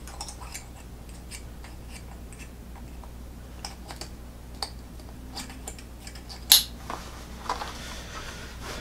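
Small clicks and rustling of an Arcade Adventure-series stretch webbing belt being fastened and adjusted at its buckle, with one sharper, louder click about six and a half seconds in.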